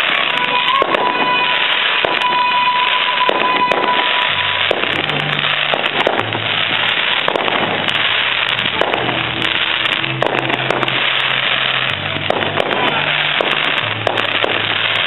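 Fireworks display going off without a break: many bangs of bursting shells over continuous crackling.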